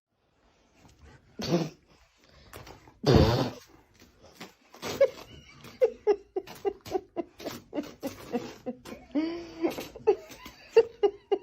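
A dog vocalizing: two sudden, louder noisy bursts in the first few seconds, then a run of short pitched whines, about two a second.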